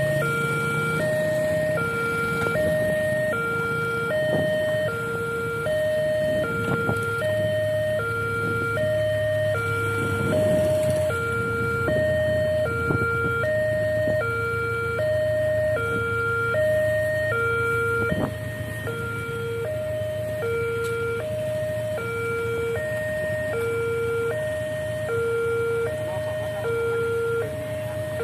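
Railway level-crossing warning alarm sounding its steady two-note signal, a lower and a higher tone taking turns about every half second, while the barriers are down for an approaching train. Motorcycle engines idle and pass under it.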